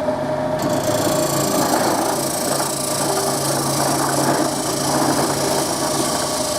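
Wood lathe running with a steady motor hum while a turning tool is pushed into the end grain of the spinning wooden cup blank, starting a rough, steady cutting noise about half a second in.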